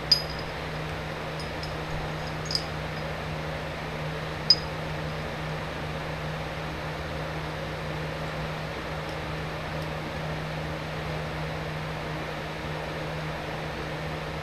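Steady workshop hum with a constant low tone, with three small metallic clinks in the first five seconds as the steel ball and aluminium jaw pieces are handled.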